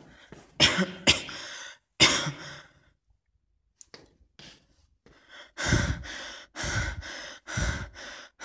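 A person coughing: three sharp coughs in the first two seconds, then after a short silence three deeper, heavier coughs about a second apart.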